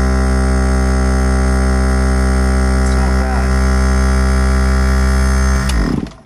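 Portable 12-volt air compressor running on the van's house batteries with a loud, steady motor hum, then switched off about six seconds in. It is running without the engine, on battery power that the owner suspects is too low in voltage for the compressor to build full pressure.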